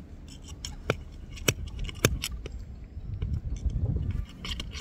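Sharp metallic clinks and knocks from handling tools and fittings on a water pipe connection, scattered through, with a low rumbling stretch about three seconds in.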